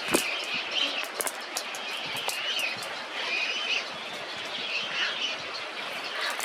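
A bird calling in repeated short warbling phrases, with sharp clicks and taps scattered through it.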